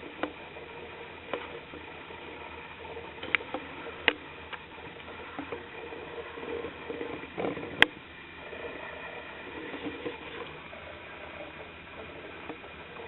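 Scattered sharp clicks and light knocks over a faint steady hum, with one louder click about eight seconds in.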